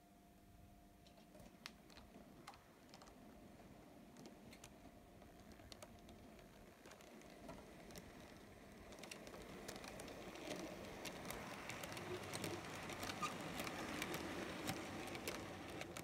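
A model train running past: the wheels of a diesel locomotive and a rake of box wagons make a quick run of small clicks and a light rattle over the track. It is faint at first and grows steadily louder as the train comes closer.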